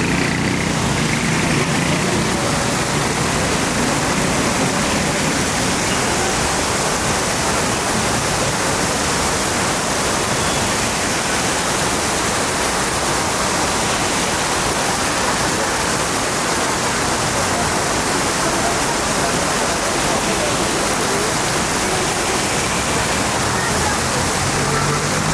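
Steady, even rushing of water from heavy rain and runoff.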